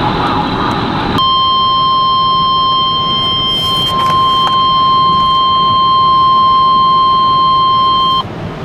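Weather radio alert tone: one steady, high electronic tone that starts about a second in and cuts off abruptly near the end, over the noise of the vehicle cabin.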